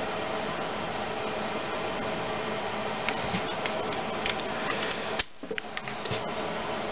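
Steady whirring background noise, with a few light metallic clicks as a torque wrench is worked on connecting-rod cap bolts. A sharper click comes about five seconds in.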